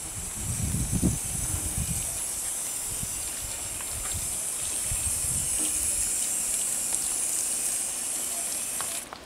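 Garden hose spray nozzle spraying water over potted geraniums and a metal trough: a steady hiss that stops abruptly near the end.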